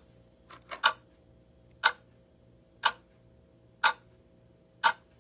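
Clock ticking: a sharp tick about once a second, with a quick run of three ticks about half a second in.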